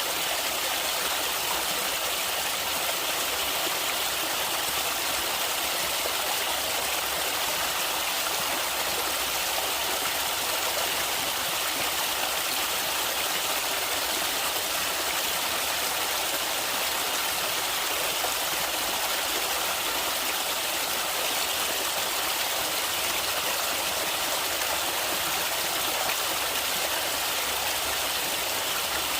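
Water running steadily in a stream, an even hiss with little low rumble and no change throughout.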